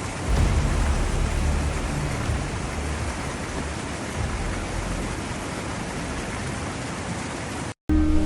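Heavy rain pouring steadily, with a low rumble underneath. It cuts off suddenly just before the end and music starts.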